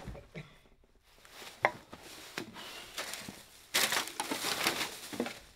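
Crunching and crumpling as litter is gathered off the floor: a couple of sharp clicks, then about two seconds of dense crackling near the end.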